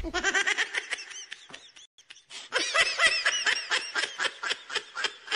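Giggling laughter in quick, rapid pulses. It is softer at first, pauses briefly about two seconds in, then comes back louder.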